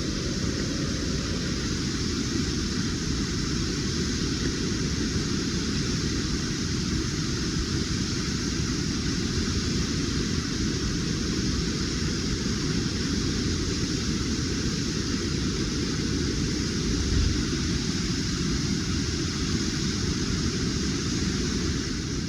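Waterfall on a mountain brook rushing steadily: an even hiss of falling water over a deep, constant rumble.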